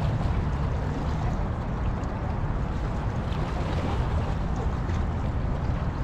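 Steady wind rumble on the microphone over river water lapping against the shoreline rocks.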